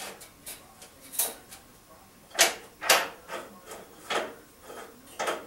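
Irregular metallic clanks and knocks as pieces of steel angle iron are handled and set down, the two loudest strikes about half a second apart near the middle.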